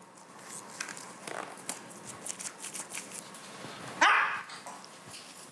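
A dog barks once, a short call rising in pitch, about four seconds in, over faint rustling and small clicks.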